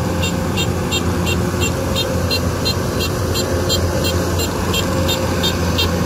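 Kubota DC-105X combine harvester's diesel engine running steadily as it cuts rice, a constant low hum, with a high-pitched ticking repeating evenly about three times a second.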